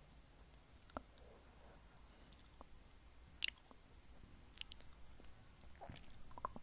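Close-miked licking of a twisted hard-candy swirl lollipop: soft wet mouth sounds with a handful of sharp tongue and lip clicks scattered through, the loudest about halfway.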